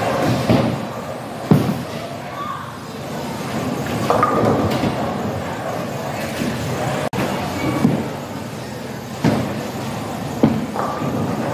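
Bowling balls thudding onto the lane and rolling, with pins clattering and several sharp thuds, over the background chatter of a bowling alley.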